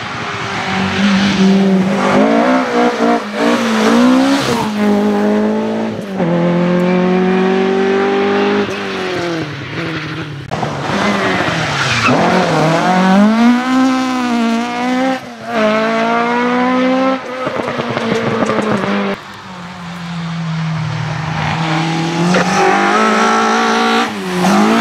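Rally cars, among them a Ford Escort Mk2, are driven hard past one after another. Each engine's pitch climbs and drops back at the gear changes, then rises and falls as the car goes by.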